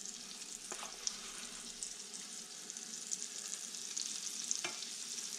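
Egg-washed, flour-dredged pieces of black drum fillet frying: a steady sizzle with fine crackling.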